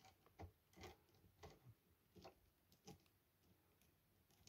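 Faint, irregular clicks, about two a second for the first three seconds, from a screwdriver turning out a screw that holds a cassette deck's tape mechanism.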